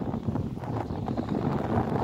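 Strong wind buffeting the microphone: an uneven, choppy rush that rises and falls in quick gusts.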